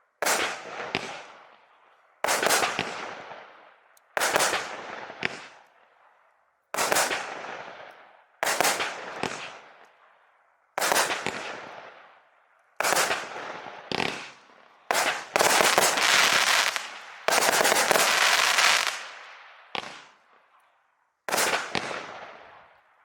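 Consumer fireworks cake, 0.8–1 inch calibre, firing its shots in turn: each sharp bang trails off into crackle over a second or so, roughly every two seconds. Several shots come in quick succession and overlap about two-thirds of the way through.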